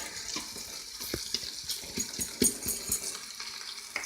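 Flour-dusted oxtails sizzling in an Instant Pot's inner pot on the sauté setting, with scattered clicks and knocks of a utensil against the pot as the pieces are moved.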